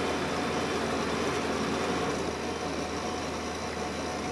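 Steady engine and road noise heard from inside a van's cab while driving on a snow-covered road. The sound eases a little about two seconds in.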